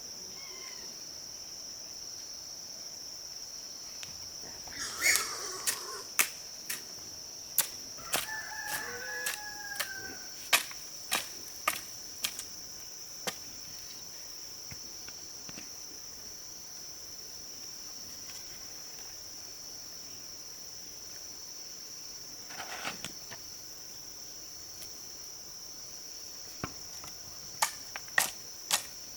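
Steady high-pitched insect chorus, with a rooster crowing about five seconds in and again around nine seconds. A series of sharp knocks comes between the crows and again near the end.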